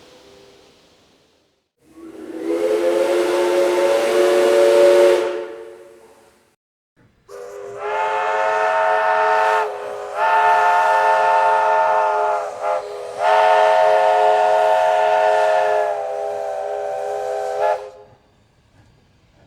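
Train whistle blowing: one blast of about four seconds with a rush of hiss, then after a short pause a longer chord of several notes sounded for about ten seconds in a few blasts broken by brief gaps, its pitch stepping down slightly near the end.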